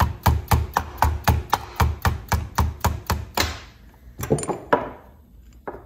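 Hammer tapping a socket extension to drive the wrist pin out of a chainsaw piston: quick, even metallic taps at about four a second that stop about three and a half seconds in, then three more single taps as the pin comes free.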